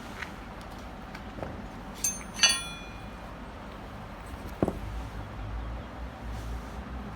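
Metal parts being handled: two sharp metallic clinks that ring briefly, about two seconds in, then a dull knock a couple of seconds later, over a low steady hum.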